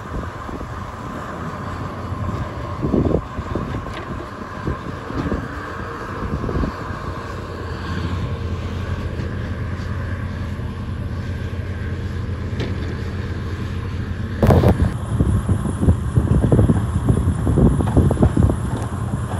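Bobcat skid-steer loader's diesel engine running under load as it pushes snow with a Boss snow pusher blade, with wind buffeting the microphone. About two-thirds of the way in the sound jumps louder and stays louder.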